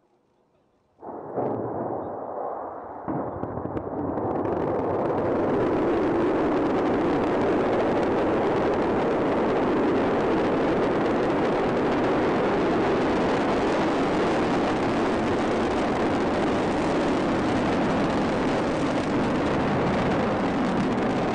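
Long March 6A rocket's engines and solid rocket boosters at ignition and liftoff: a sudden rumble about a second in, building in steps over the next few seconds into a steady, loud roar of rocket exhaust as it climbs.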